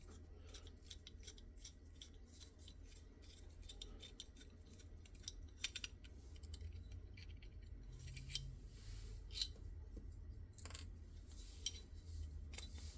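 Faint, scattered light metallic clicks and taps of small parts being handled with a Glock armorer's front sight tool, over a steady low hum.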